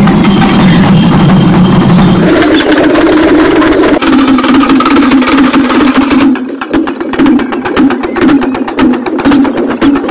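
Loud group drumming: drums beaten with sticks in a fast, driving rhythm amid a crowd. From about six seconds in, the individual stick strikes stand out sharply and rapidly.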